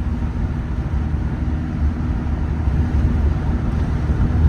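Cabin sound of a 2006 Honda Civic Si on the move, windows open: the four-cylinder engine running steadily under a low rumble of road and wind noise.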